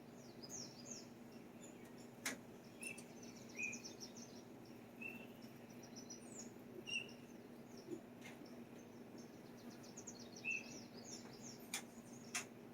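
Small birds chirping and twittering: short single chirps repeated every second or two, with bursts of rapid high twittering between them. A few sharp clicks and a faint steady low hum lie beneath.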